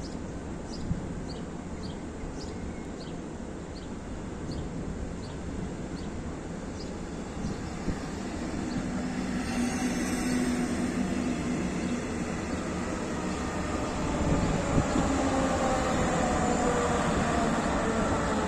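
Electric passenger train, a CFL double-deck set with its Class 3000 locomotive, rolling past: a steady rumble of wheels on rail that swells over the last few seconds, with a sliding electric whine from the locomotive as it draws level.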